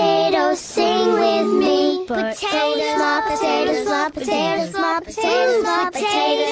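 Music with a high-pitched singing voice holding long, bending notes.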